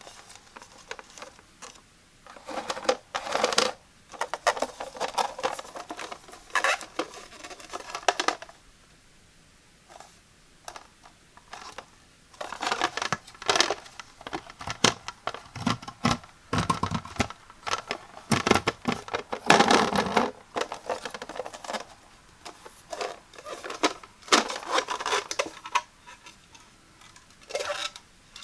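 Fingers brushing and flicking the stiff plastic blades of a Boon Grass drying rack, making irregular bursts of scratchy clicking patter separated by short pauses. Near the end the plastic base tray is handled and lifted away.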